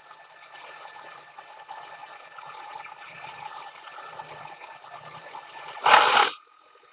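End mill in a Bridgeport milling head taking the last pass along a long metal shim on a planer mill: a steady crackling hiss of cutting with a thin steady tone. About six seconds in there is a loud, brief rushing burst, and then the cutting noise stops.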